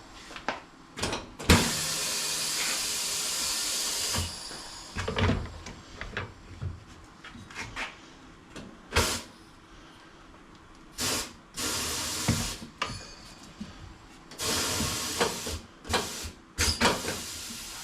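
Motorcycle tire changer's clamps being worked to lock a wheel in place: several bursts of compressed-air hiss, the longest about two and a half seconds, with short metal knocks and clanks between them.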